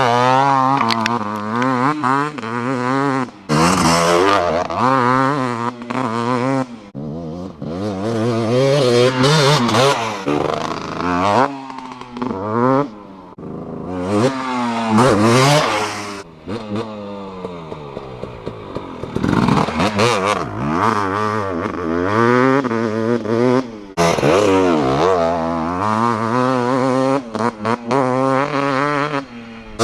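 2018 KTM 250SX two-stroke engine with an FMF Powercore 2 exhaust, ridden hard: it revs up and falls off again and again, the pitch climbing and dropping through throttle and gear changes, with a few abrupt breaks.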